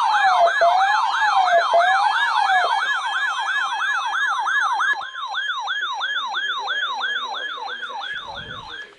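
Electronic emergency-vehicle sirens in a fast yelp, the pitch rising and falling about three or four times a second, with a slower rising-and-falling siren layered over it for the first three seconds. One layer drops out about five seconds in, and the sound fades away near the end.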